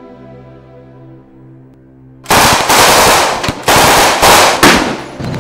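Soft held music notes, then a little over two seconds in a sudden eruption of loud automatic gunfire in rapid bursts with brief breaks.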